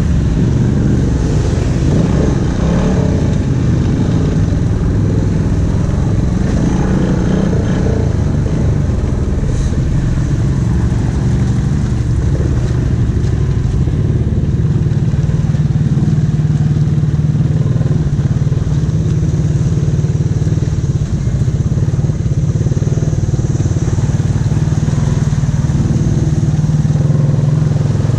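A Honda Rubicon ATV's single-cylinder engine running steadily under way, heard close up, at a fairly even pace throughout.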